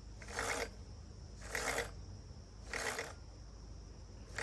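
STIHL 462 chainsaw chain pulled by hand around the bar in short strokes, each a brief rattling rasp of the links and cutters sliding in the bar groove, about one every second and a quarter: a check that the refitted chain is tensioned and moves smoothly.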